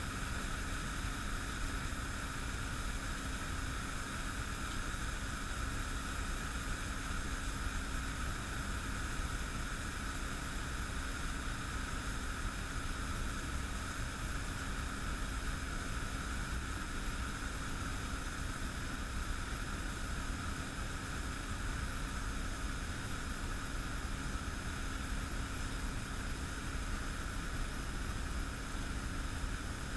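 Steady fizzing hiss of an aluminium can reacting with hot sodium hydroxide solution in a glass bowl, hydrogen bubbling up through the liquid without pause, with a faint steady hum underneath.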